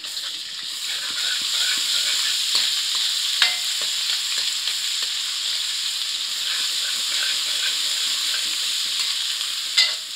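Onions and ginger-garlic paste sizzling in hot oil in a metal kadai, stirred with a metal spoon that scrapes round the pan. The sizzle builds over the first second, and the spoon knocks sharply on the pan about three seconds in and again near the end.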